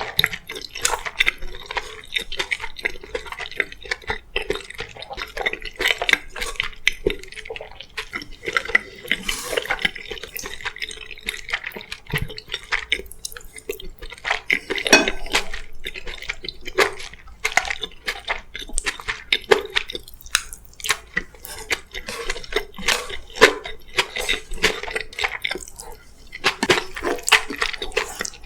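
Close-miked eating sounds: irregular wet mouth clicks and chewing, with utensils clicking against dishes, several small sounds a second.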